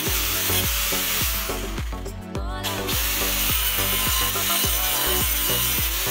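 Angle grinder with a thin cut-off disc grinding into a steel circular saw blade, a steady hiss that breaks off for about a second around two seconds in, then resumes. Background music with a steady beat plays over it.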